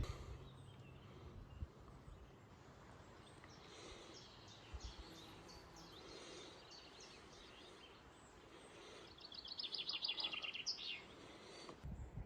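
Small birds singing faintly over a quiet background hiss, with a louder rapid run of high repeated notes about nine seconds in that lasts a couple of seconds.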